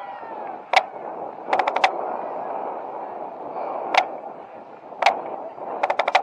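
Sharp drumstick strokes on a marching drum right at the microphone. There are single hard hits and two quick runs of about five strokes each, with a steady murmur underneath.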